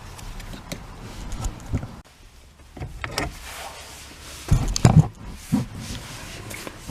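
A series of handling knocks and clunks, with a cluster of heavier thumps about four and a half to five seconds in.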